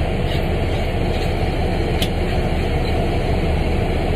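Freightliner dump truck's diesel engine idling steadily, heard from inside the cab, with a single brief click about two seconds in.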